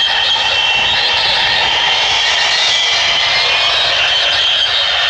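MiG-35's twin RD-33-series turbofans running at low power as the jet taxis: a steady high-pitched whine sitting on two tones over a rushing noise.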